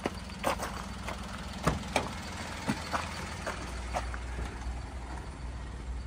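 Small Daihatsu Hijet kei truck's 660cc three-cylinder engine idling with a steady low hum, louder from about halfway through as the listener moves into the cab. Footsteps on gravel and a few sharp knocks, as of the cab door, come in the first four seconds.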